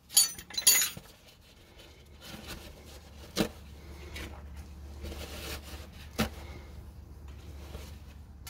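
A few quick light metallic clinks and rattles from hand tools and parts at the rear brake hub near the start. Then two single sharp knocks about three seconds apart over a faint steady low hum.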